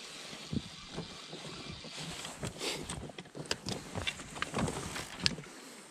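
Clicks and knocks of fishing gear being handled in an inflatable boat, a quick irregular run starting about two seconds in, over a steady hiss.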